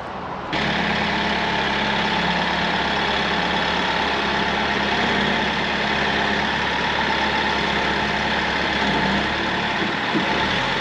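Heavy lorry's diesel engine running steadily at idle. It starts abruptly about half a second in.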